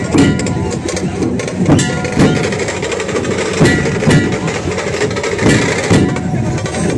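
A dhol troupe: many large barrel drums beaten together in a dense, continuous pounding with sharp stick strokes and heavier accents every second or so.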